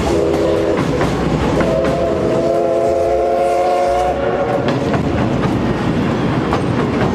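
Steam whistle of the C58 363 steam locomotive: a short blast, then a longer blast about a second and a half later that dies away after about 4 s. Underneath, the steady rumble and clickety-clack of the train's wheels over rail joints.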